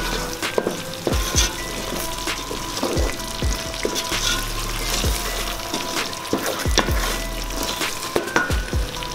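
Wooden spatula stirring chicken curry in an aluminium pot, knocking and scraping against the pot at irregular intervals over a steady sizzle of the cooking sauce.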